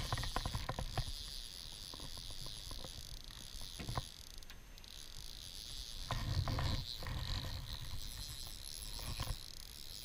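Cicadas buzzing in a steady high-pitched chorus, with a few low thumps about six to seven seconds in.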